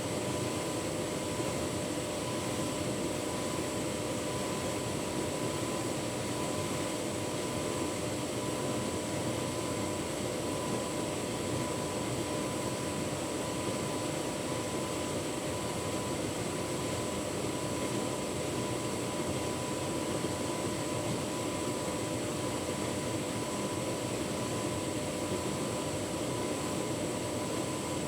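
Tumble dryer running with a full load of bedding: a steady whir of motor and fan with a low hum and a faint high whine.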